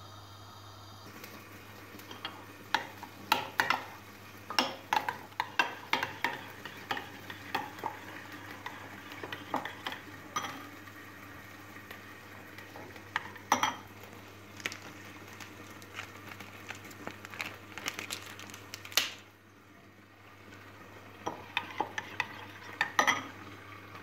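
Metal spoon clinking against a ceramic cup in quick, irregular runs of strokes while eggs are beaten, over a steady low hum.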